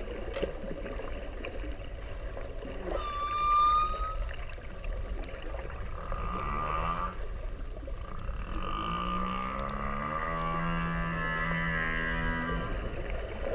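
Whale calls: a short high whistle about three seconds in, then low moaning calls, one gliding upward, and a long held low moan with a higher tone above it that stops near the end, over a steady low rumble and hiss.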